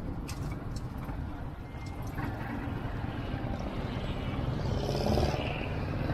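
Engine and road noise heard from a moving vehicle: a steady low rumble with traffic around it.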